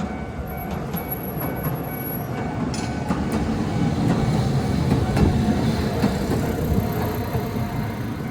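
A Tokyo Sakura Tram (Toden Arakawa Line) streetcar passing over a level crossing, its running noise building to its loudest about five seconds in, with scattered clicks of the wheels over the rail joints. A level-crossing warning bell rings faintly in the first seconds and fades out.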